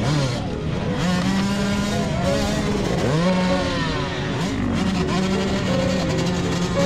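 Several enduro dirt-bike engines running at once, revved in short bursts so the pitch keeps rising and falling. One engine dips and climbs again sharply about three seconds in.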